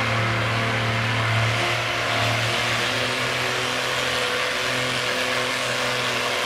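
Cockshutt tractor's engine running steadily as the tractor pulls a weight-transfer sled, changing slightly in tone about two to three seconds in.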